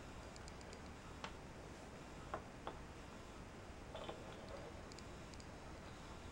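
Small square wooden burr-puzzle pieces clicking against each other as they are fitted into the assembly: a few faint, sharp knocks, three in the first three seconds, and a short wood-on-wood rub about four seconds in.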